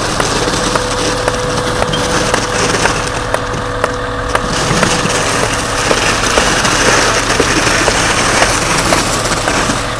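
Truck-mounted concrete pump running steadily as concrete is pumped through the boom hose into insulated concrete forms, with many scattered sharp knocks and taps throughout. A faint steady whine sounds over the first half.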